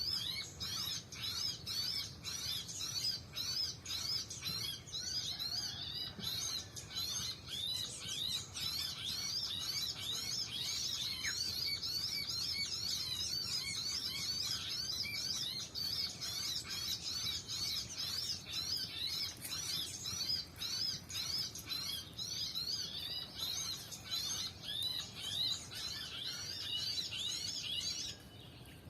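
A bird chirping fast and without pause, a string of high repeated notes at about four a second, that cuts off abruptly near the end.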